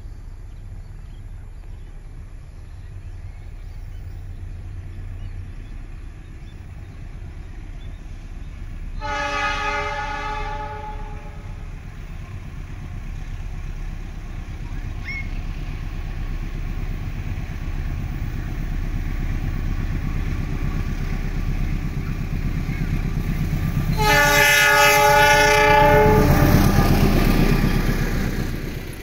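CC206 diesel-electric locomotive sounding its horn twice, a blast of about two seconds and then a longer one about fifteen seconds later, as it approaches and passes hauling a passenger train. The rumble of the engine and the wheels on the rails builds steadily and is loudest as the locomotive goes by near the end.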